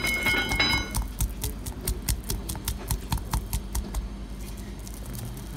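Wooden pestle knocking against a marble mortar in quick, irregular strokes while pounding basil and pine nuts into pesto.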